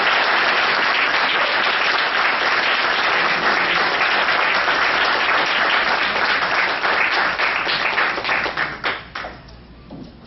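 Audience applauding. The applause thins to scattered claps and dies away about nine seconds in.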